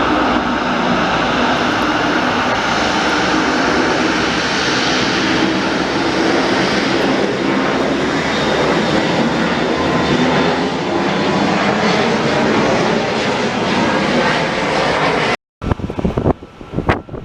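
Jet airliner's engines running loud and steady as the aircraft passes close by. About 15 seconds in the sound cuts off, and then gusty wind buffets the microphone in irregular rumbles.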